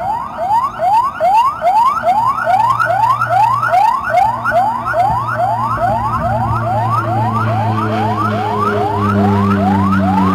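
Ambulance siren in fast yelp mode: a loud wail that sweeps upward and snaps back about three times a second. A low drone runs underneath and rises in pitch near the end.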